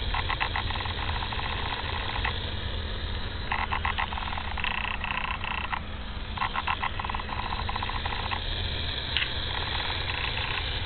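Pressurized water supply line under a house making an abnormal noise as water flows through it: a steady low rumble with repeated bursts of rapid pulsing chatter. The owner suspects it comes from a leak in the line.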